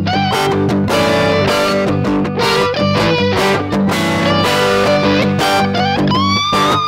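Blues played on electric guitar and harmonica: a steady repeating guitar rhythm underneath, with melody notes bending in pitch above it. About six seconds in, a high note bends upward and is held.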